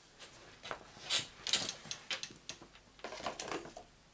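Small hard objects clicking and rattling irregularly as someone rummages through them looking for a pin. There are louder clatters about a second in and again around three seconds.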